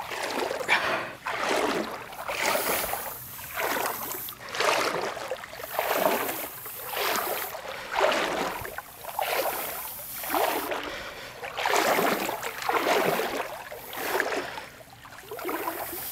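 Legs wading through shallow river water, a splashing swish with each stride, about one a second.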